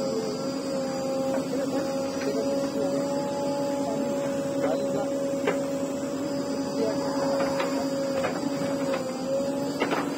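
JCB backhoe loader running at a steady speed while its backhoe arm digs and lifts soil: a steady hum with a higher tone over it, broken by a few sharp clicks and knocks.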